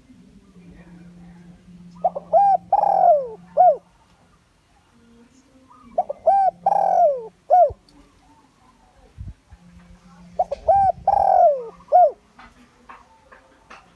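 Spotted dove cooing: three identical phrases about four seconds apart, each a few short notes around one longer, louder note that falls in pitch.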